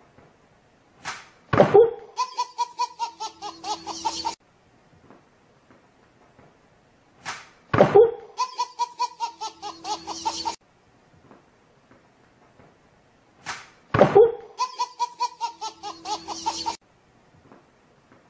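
A baby's belly laugh: a loud shrieking start breaking into a rapid run of 'ha-ha' pulses, about two and a half seconds long. It is heard three times, about six seconds apart, each time just after a short sharp sound.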